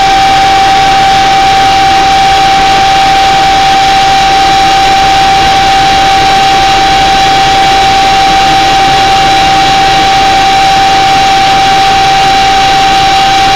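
Loud, steady road and engine noise heard from inside a moving vehicle, with a constant whine running through it and no change in pace.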